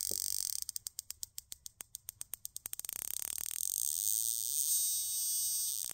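Spark plug snapping across its gap, fired by an RCEXL CDI ignition unit on an ignition tester: rapid, even ticking, several sparks a second, which shows the ignition unit is firing. A faint steady whine comes in over the second half.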